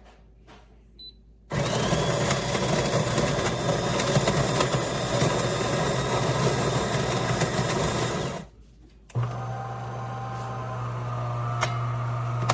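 De'Longhi Magnifica Plus espresso machine's built-in grinder grinding coffee beans, a loud rattling whir that starts about a second and a half in and cuts off after about seven seconds. After a short pause the machine's pump starts with a steady low hum, the start of brewing.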